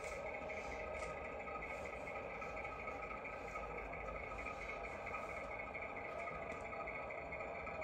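DCC sound decoder playing a Class 08 diesel shunter's engine through a model locomotive's small speaker, running steadily as the loco moves a wagon at low speed.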